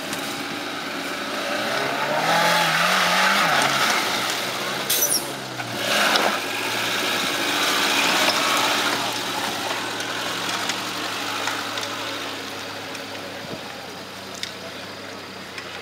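Suzuki Samurai off-road 4x4 engine revving hard and unevenly as it drives over a rough dirt course, with a sharp bang and clatter about five to six seconds in. The engine then fades as the vehicle pulls away.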